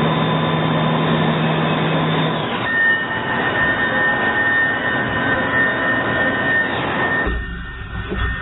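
A CNC horizontal machining center running: a steady hiss of machining with a held whine. The whine jumps to a higher pitch about two and a half seconds in, and the sound shifts abruptly to a low hum near the end.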